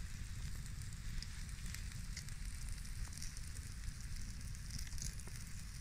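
Wood campfire burning with a steady hiss, a low rumble and scattered small crackles and pops.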